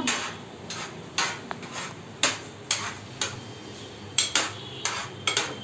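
Metal spoon stirring grated carrot and milk in an aluminium pressure cooker pot, scraping and clinking against its sides and base in irregular strokes, about one or two a second.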